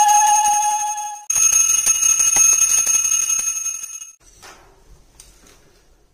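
Small brass puja hand bell rung rapidly and continuously, a bright ringing tone with fast clapper strikes. It breaks off about a second in, starts again, and stops about four seconds in.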